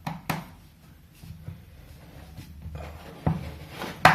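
Small screwdriver clicking and scraping against a stuck screw inside a phone, the tip slipping in the screw head as it refuses to turn. A few sharp clicks with quiet scraping between them, the loudest click near the end.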